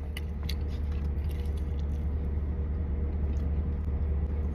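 A man chewing a fatty bite of barbecued meat, with a few faint wet clicks near the start, over a steady low hum inside a car.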